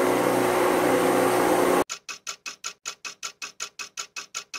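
A blender running steadily as it beats eggs, oil and sugar into cake batter, cut off abruptly about two seconds in by a fast clock-ticking sound effect, about six ticks a second, marking a time skip.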